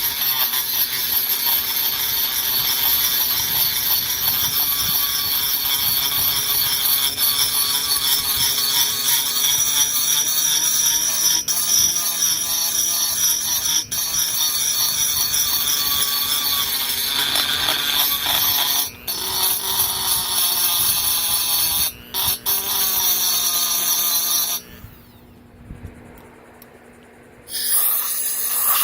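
High-speed rotary tool with a cutter grinding metal out of a chainsaw cylinder's port, giving a steady high whine. It breaks off briefly twice about two-thirds of the way through, then stops for about three seconds near the end before starting again.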